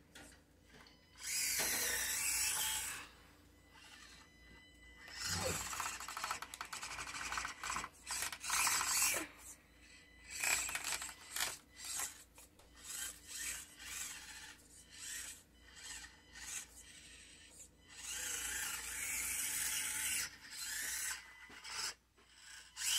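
Small electric motor and gears of a toy RC truck whirring in stop-start bursts of a second or two, with the tyres scraping and rubbing as it climbs over stacked books.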